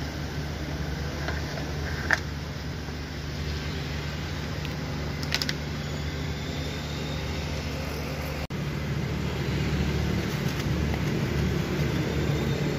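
Steady low mechanical hum of a running machine, with two sharp clicks, one about two seconds in and one near the middle. The hum drops out for an instant about two-thirds of the way through and comes back a little louder.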